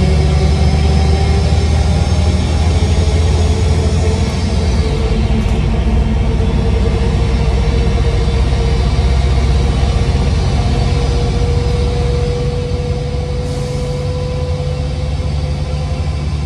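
DAF DB250 bus engine pulling, heard inside the passenger saloon: a deep steady drone with a whine that climbs slowly in pitch. A high turbocharger whistle fades away about four to five seconds in.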